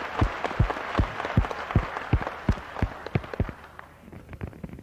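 Audience applauding, with a steady rhythmic beat of about three claps a second running under the general clapping. The applause dies away near the end.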